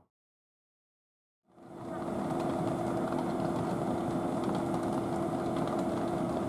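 About a second and a half of dead silence at an edit, then a steady mechanical hum with a constant low tone fades in and holds at an even level.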